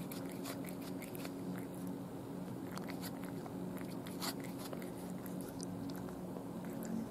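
Cat chewing a raw day-old chick: irregular wet clicks of teeth and tongue, busiest in the first half, with one louder click about four seconds in. A steady low hum runs underneath.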